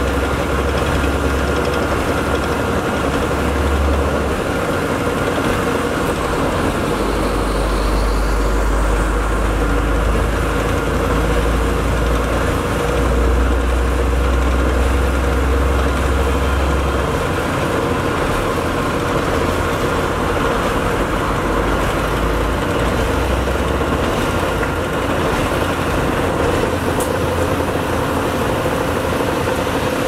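Heavy diesel engines of asphalt-paving machinery running steadily. A deep low drone swells and eases over several seconds, with a few steady tones above it.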